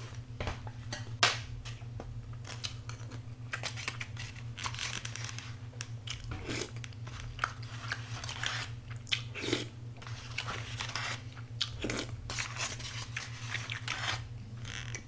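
A person chewing and crunching food close to the microphone, with irregular wet clicks and smacks of the mouth. A steady low hum runs underneath.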